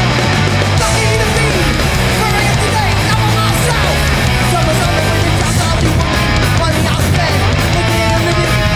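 Hardcore punk band playing live at full volume: distorted electric guitars, bass and drums driving on without a break.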